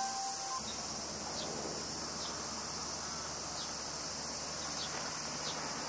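Insects singing in a steady, high-pitched drone. The last notes of background music end about half a second in.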